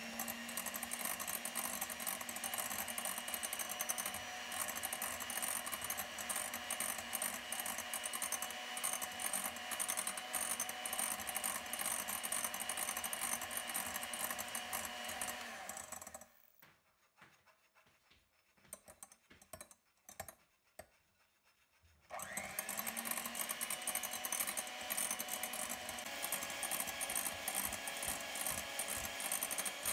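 Electric hand mixer beating egg-white meringue in a glass bowl, mixing in the gel food colouring: a steady motor whine with the beaters whirring. It stops a little past halfway for several seconds of quiet broken by a few faint knocks, then starts again with a rising whine as the motor spins up.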